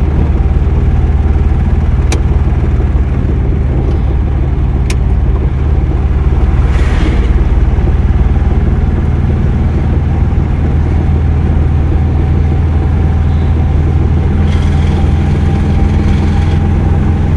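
Car engine and road noise heard from inside the cabin while driving, a steady low hum throughout. Two sharp clicks about two and five seconds in, and a brief rush of noise about seven seconds in.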